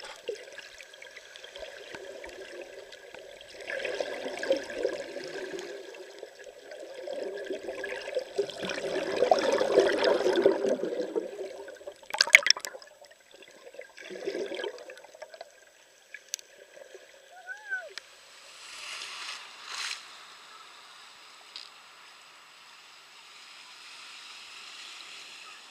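Water moving around a camera held underwater, swelling and fading in waves, with the loudest stretch about ten seconds in and a couple of sharp clicks soon after.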